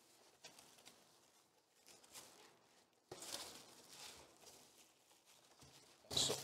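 Faint scattered rustling and handling noises of someone rummaging for an item, with a sharper rustle about three seconds in and a louder one near the end.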